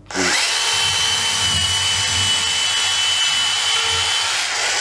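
Bosch EasyCut 12 cordless NanoBlade saw started up and running, its motor rising to a steady high whine as it cuts into a joint of meat; the pitch dips briefly near the end.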